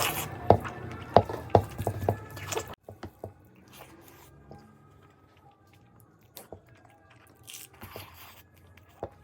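Close-miked eating sounds: wet chewing, mouth clicks and smacks as spicy curry and rice are eaten. A steady background hum under the first few seconds cuts off abruptly about three seconds in, leaving quieter, scattered chewing clicks.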